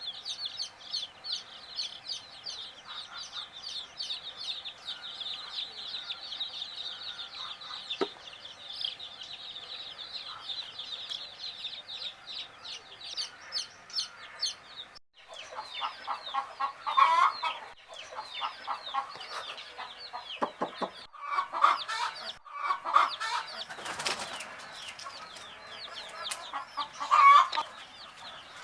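A brood of domestic baby chicks peeping: many rapid high chirps overlapping in a steady chorus. About halfway there is a brief break, after which louder, lower clucking calls come in bursts among the peeps.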